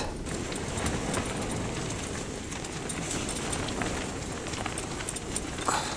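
Strong wind rushing against an ice-fishing tent, with faint scattered ticks.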